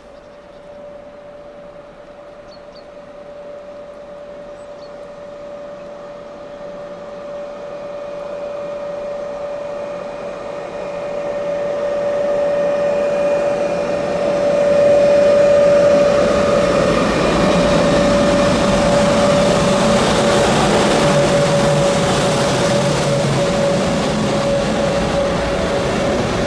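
A string of ÖBB electric locomotives, a Taurus leading a class 1144, running light and approaching. A steady whine grows louder over the first half, then wheel-on-rail rumble and clatter swell as the locomotives reach and pass.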